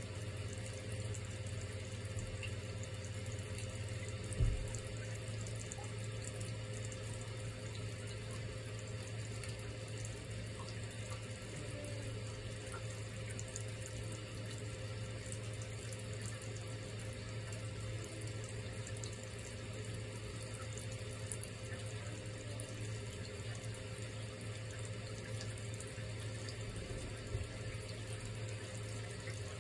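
Thin stream of water running steadily from the spout of a toilet-tank hand-wash basin into the basin, with a steady low hum underneath. A single soft thump about four and a half seconds in.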